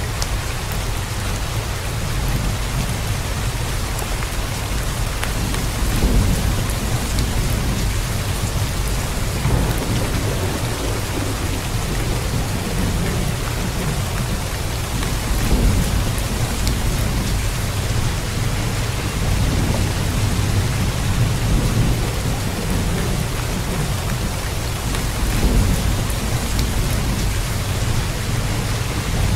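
Steady, heavy rain hissing, with low rolling rumbles of thunder that swell three times: about 6, 15 and 25 seconds in.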